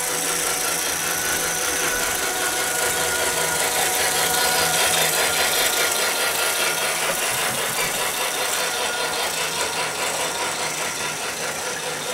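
Large toy train running on its plastic track: a steady motor whir with a fast rattle of the wheels, growing louder toward the middle and easing off a little near the end.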